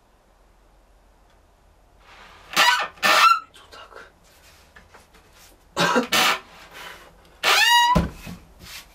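Wood squeaking against wood on a handmade shaving horse as its wooden parts are pushed and slid together: two short squeals a few seconds in, two more around the middle, and a longer squeal near the end that drops in pitch.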